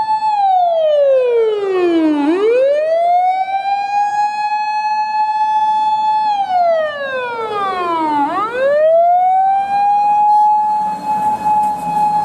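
Osaka Siren fire-engine siren wailing: a steady high tone held for several seconds, then sliding down over about two seconds and sweeping quickly back up to the held pitch, twice.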